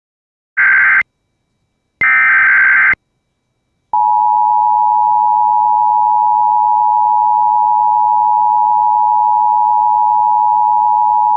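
Emergency Alert System broadcast tones: two short bursts of the digital SAME header, about a second apart, each lasting about half a second to a second. About four seconds in, the steady two-tone EAS attention signal (853 and 960 Hz sounding together) begins and holds. Together they mark the start of an emergency alert, here a tornado warning.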